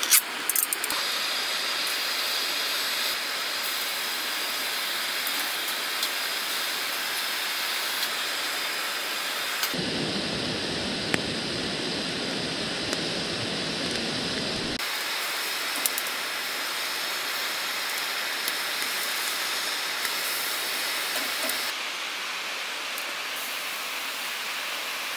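Steady hiss and sizzle from a small tabletop grill with canned whelks cooking on its wire mesh. A can's pull-tab clicks open at the very start.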